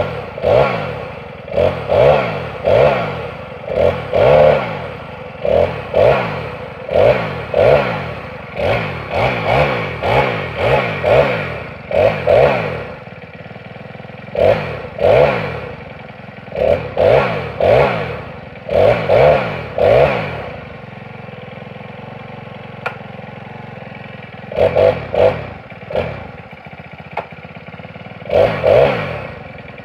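A Senix 46cc four-stroke chainsaw being pull-started from cold. The recoil starter cord is yanked over and over, each pull a short rasp as the engine cranks over, falling off in pitch as it slows, about one pull a second. The engine does not catch. The pulls come in runs, with a few pauses between them, the longest one a few seconds long about two-thirds of the way through.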